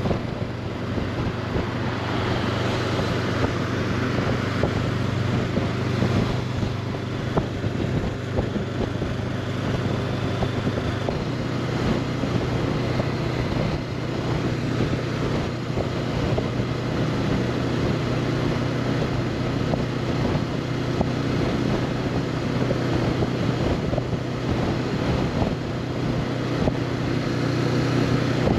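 Honda CB500X motorcycle's parallel-twin engine running at a steady cruising speed, with wind rushing over the rider's helmet microphone.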